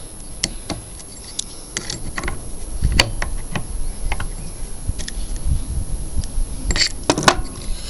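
Metal tools and small engine parts clicking and clinking against each other and the bench as the small engine is taken apart. The sharpest clinks come about three seconds in and again near the end.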